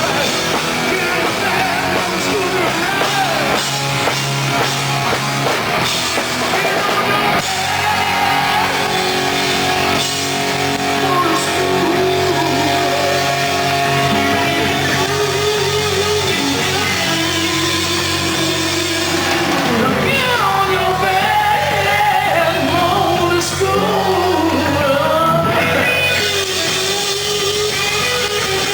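Hard rock band playing with electric guitar, drum kit and singing.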